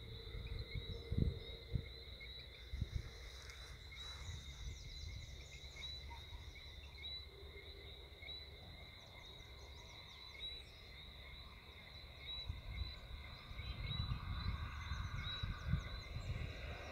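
Chorus of insects and frogs in grassland: a steady high trill with short chirps repeating through it, over a low rumble. Near the end a car can be heard approaching, its rumble rising.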